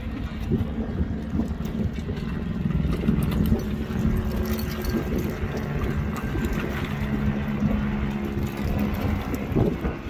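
Aa lava advancing, its rubbly crust giving a scatter of faint cracks and clinks, over a steady low engine hum and wind rumbling on the microphone.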